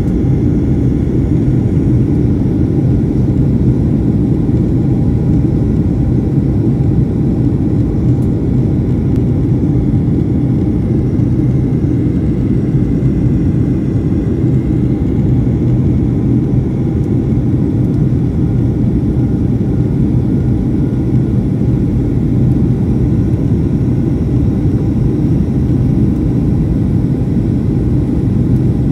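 Steady cabin noise inside a jet airliner descending on approach to land: a low rumble of engines and rushing air with a faint high whine.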